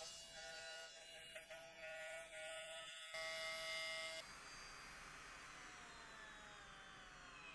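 Small electric motor of a milling spindle buzzing with a steady whine while cutting slots in aluminium. It stops about four seconds in, leaving a faint hiss.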